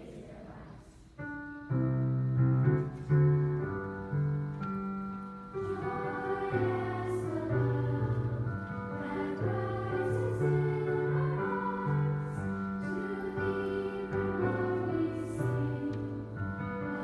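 Girls' choir singing with piano accompaniment, after a few seconds of piano chords alone at the start.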